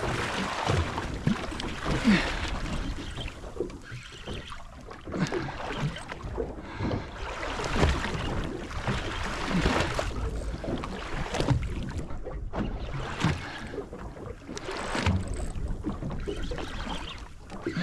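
Wind buffeting the microphone and water slapping against a small boat's hull in an offshore swell, a steady rushing sound with irregular knocks and swells.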